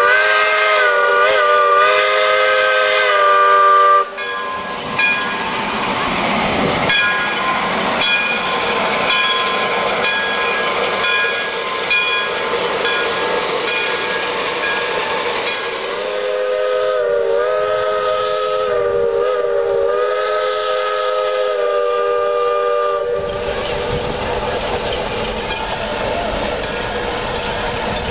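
Steam locomotive whistle sounding a chord of several notes for about four seconds, then breaking off. Next comes the running noise of the passing train, with a second long, wavering blast of the whistle in the middle.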